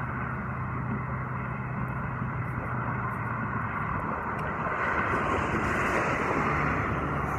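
Street traffic: a steady vehicle hum, with a vehicle passing louder from about four and a half seconds in.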